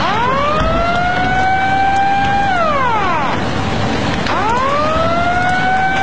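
Outdoor tsunami warning siren wailing: it rises to a steady pitch, holds for about two seconds, then slides down. It starts rising again about four seconds in and is holding steady at the end.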